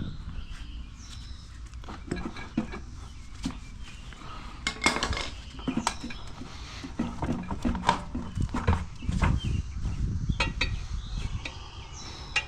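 Hand tire irons clinking, knocking and scraping against a cast mag wheel rim and tire as the tire bead is levered on by hand, in irregular strokes.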